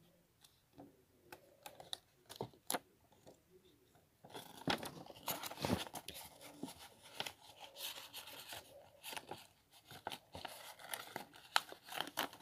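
Sheets of paper being handled and folded by hand: a few faint scattered clicks, then from about four seconds in a denser rustling and crinkling of paper.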